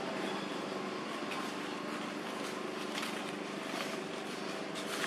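Steady background noise with a faint low hum, broken by a few brief rustles or clicks.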